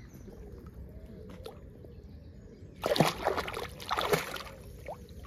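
Two loud splashes in shallow lake water about three seconds in, a second apart, over a quiet background of lapping water.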